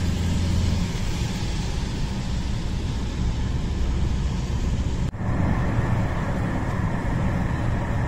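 Steady road noise inside a moving car on a wet road: tyre and engine noise with a low hum. About five seconds in it breaks off for an instant and carries on duller.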